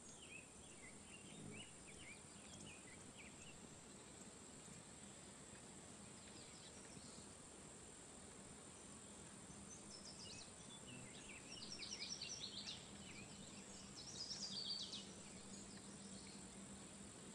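Birdsong in a riparian cottonwood-willow stand over a steady faint hiss. In the first few seconds a distant black-headed grosbeak sings faintly. Later a yellow warbler sings loud and clear, two quick runs of bright, high notes.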